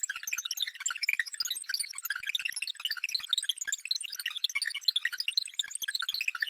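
Synthesized futuristic data-transfer sound effect: a rapid, continuous patter of short high electronic blips and chirps at scattered pitches, with no low end.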